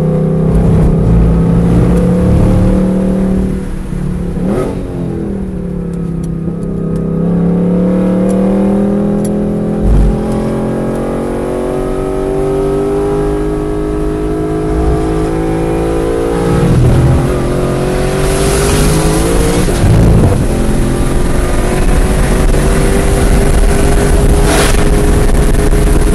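A high-performance car engine driven hard on a race track, its note repeatedly climbing under acceleration and dropping off, with a few sharp swoops in pitch.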